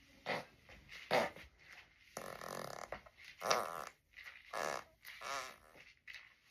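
A man passing gas about six times in a row: mostly short farts, one drawn out for most of a second, a few with a wavering, fluttering pitch. The loudest come about a second in and about three and a half seconds in.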